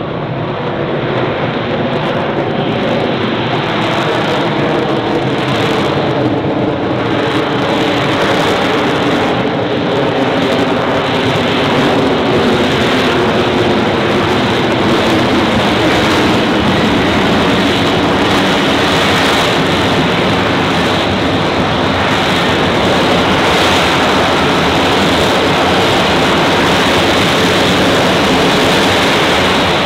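F-35B Lightning II's jet engine and lift fan running in slow, jetborne short-takeoff/vertical-landing flight: a loud, steady jet roar with a droning hum of several tones in it. It grows a little louder over the first ten seconds or so, then holds steady.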